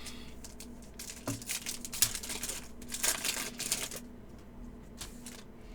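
Crinkling and rustling of trading-card pack wrappers and cards being handled, with small clicks, busiest through the middle.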